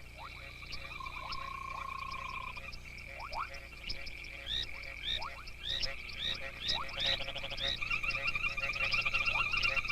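A chorus of many frogs calling for mates, a racket of several overlapping call types: a steady high trill, short rising chirps repeated about twice a second in the middle and lower rising notes. About two seconds before the end, a denser buzzing trill comes in and the chorus grows louder.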